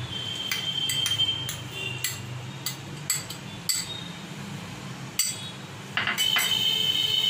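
A spoon clinking and tapping against a glass bowl and a plate as thick hung curd is scooped out and dropped onto raw chicken, in scattered separate taps.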